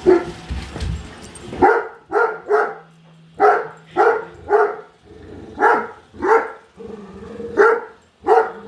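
Great Dane barking over and over in short runs of two or three deep barks, about a dozen barks in all: alarm barking at a robot vacuum.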